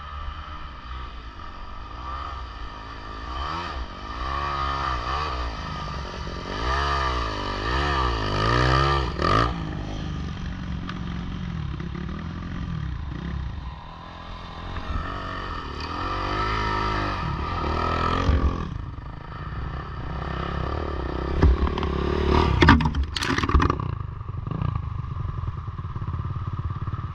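Motocross dirt bike engine revving up and down several times, with a cluster of sharp knocks and clatter about 22 seconds in.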